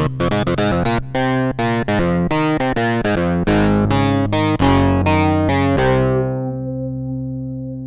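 Sequential Trigon 6 analog synthesizer playing its 'Big Phaseklav' preset: a quick run of short, plucky clavinet-like notes over a bass line, then a final chord held and slowly fading for the last couple of seconds.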